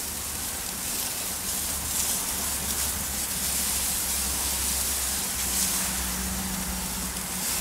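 Slices of back bacon sizzling on a hot gas grill grate as a sugary maple wet rub is brushed onto them: a steady hiss, with a low hum underneath.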